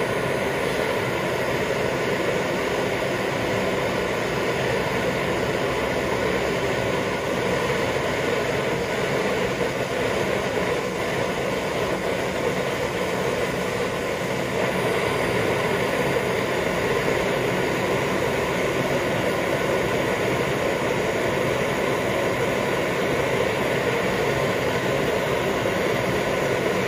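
Handheld gas blowtorch flame burning with a steady rushing hiss, played onto coins until they melt.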